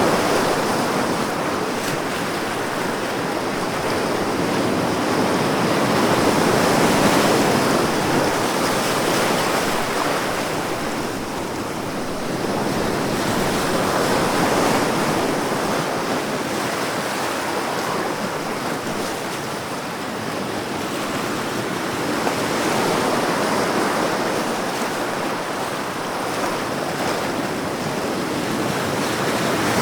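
Ocean waves washing in as a continuous rushing hiss that swells and eases about every seven or eight seconds.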